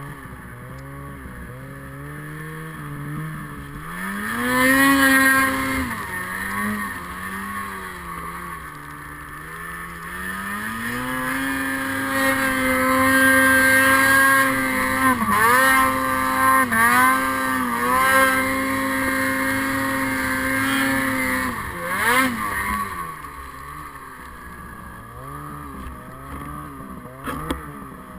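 Snowmobile engine being ridden through deep powder, revving up and down with the throttle. It climbs to high revs, holds there for several seconds with a few quick dips, then eases back to lower revs near the end.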